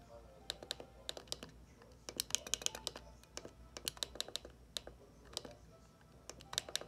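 Flipper Zero's directional-pad buttons clicking as they are pressed again and again to scroll its menus, in irregular runs of quick clicks, busiest about two to three seconds in.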